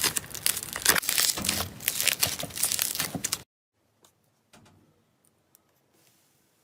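Slime being squished and pressed by hand, giving a dense run of crackles and crunches that cuts off abruptly about three and a half seconds in, followed by a few faint clicks.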